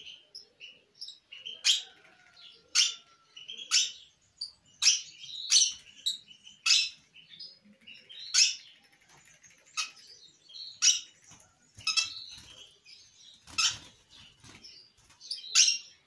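Young peach-faced lovebirds giving short, sharp, high chirps, about one a second and irregular, while being hand-fed.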